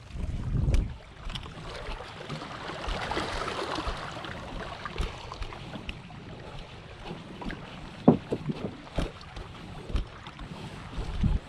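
Footsteps over rounded beach stones, the cobbles clacking and knocking irregularly underfoot, with low buffets of wind on the microphone near the start and near the end.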